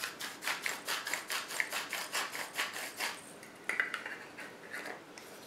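Hand-twisted pepper mill grinding pepper: a quick, even run of grinding clicks, about six a second, for about three seconds. A few more scattered clicks come about four seconds in.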